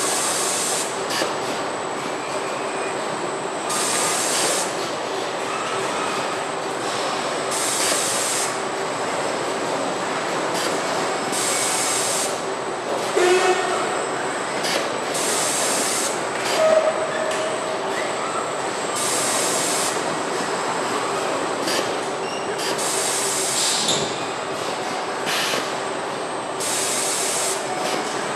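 Car-body assembly robots and line machinery running with a steady hum and tone, broken by short hisses every four seconds or so.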